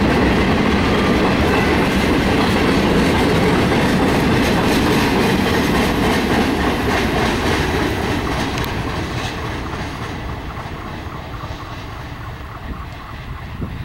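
Ferromex freight train of boxcars rolling past, the wheels clicking over the rail joints. The last car goes by about halfway through and the rolling sound then fades steadily as the train moves away.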